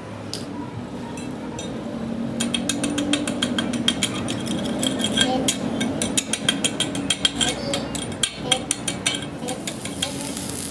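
Rapid, irregular metallic clicking during truck differential repair work, several clicks a second for about seven seconds, over a low steady hum.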